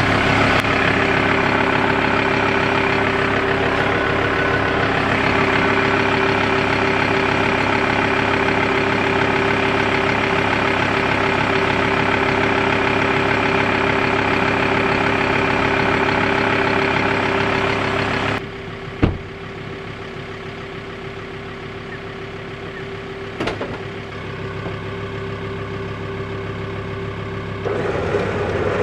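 Ford Ranger's engine idling steadily. About 18 seconds in it drops to a quieter running sound, with a sharp click soon after and another a few seconds later.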